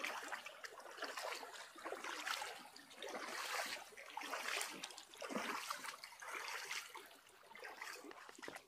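Rubber boots wading through a shallow, fast river riffle, splashing and sloshing with each step, about one step a second.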